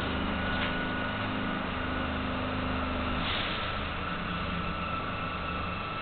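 1982 Kawasaki B-IV subway car standing at a station, its onboard equipment humming steadily, with a brief hiss about three seconds in.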